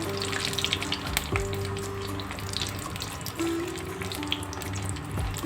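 Bori (sun-dried lentil dumplings) frying in hot oil in a kadai, a crackling sizzle with many small pops, over soft background music with sustained notes.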